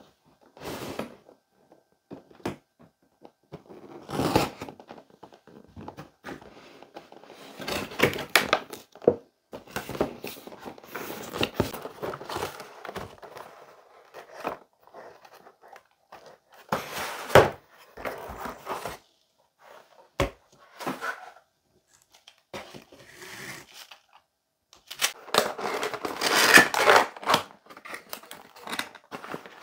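Cardboard box and plastic packaging being handled: irregular bouts of scraping, tearing-like rustle and crinkling, with a few sharp knocks in between.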